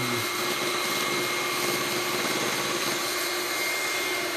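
Electric hand mixer running steadily at a constant speed, its twin beaters whisking cake batter, a steady motor whine.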